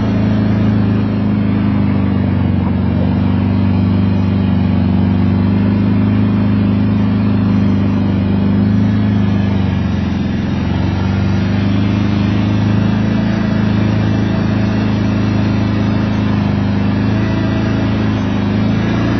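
Four-wheeler (ATV) engine running steadily at low speed along a trail, its pitch dipping briefly about ten seconds in.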